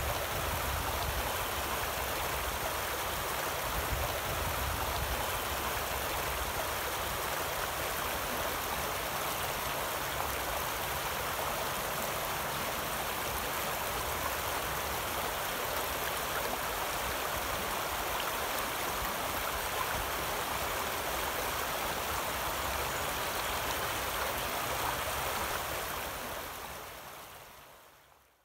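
Shallow creek water running over rocks in a riffle: a steady rush and babble of flowing water that fades out near the end.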